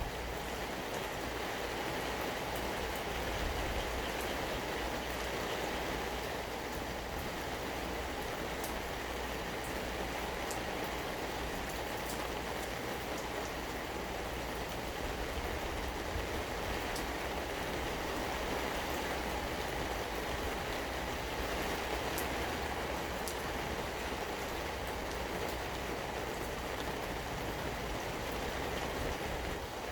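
Steady rain falling: an even hiss with scattered faint drop ticks and a low rumble underneath.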